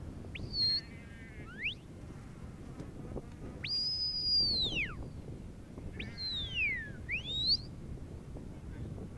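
Sheepdog handler's whistle commands to a working Border Collie on the gather, directing the dog from a distance. A short rising note and a quick upward sweep come early, then a long high held note that falls away at its end, then a falling note followed by a rising one.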